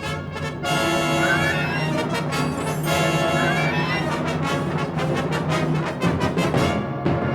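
Symphonic wind band playing a loud, brass-heavy passage with trumpets and trombones over sustained low notes, with short upward runs about a second in and again near three seconds.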